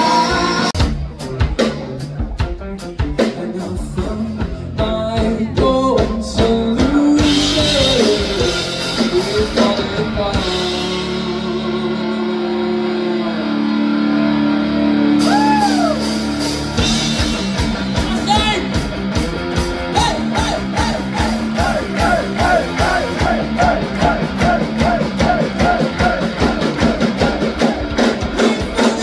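Live rock band playing: drum kit, guitar and a singer. The drums drop out for a few seconds in the middle under long held notes, then come back in, with the singer holding wavering notes near the end.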